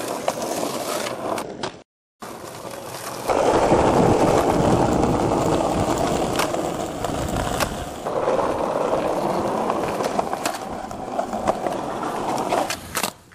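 Skateboard wheels rolling, with a few sharp clacks of the board. A brief cut to silence about two seconds in, then a louder, steady rolling run from about three seconds on.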